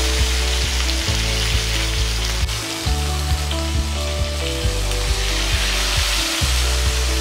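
Whole red snapper shallow-frying in oil in a flat pan, sizzling steadily, with background music's low bass notes underneath.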